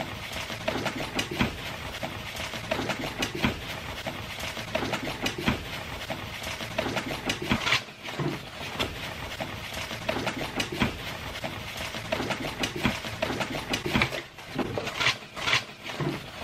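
Messy, wet eating noises of pizza being mashed against a face and chewed: a dense, continuous run of rapid smacks, squelches and crackles.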